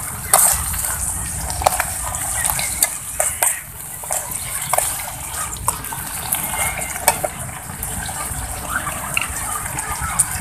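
A metal spoon stirring oyster mushrooms in a small aluminium saucepan, knocking and scraping against the pan in a series of irregular clicks, over a steady hiss of the pan simmering.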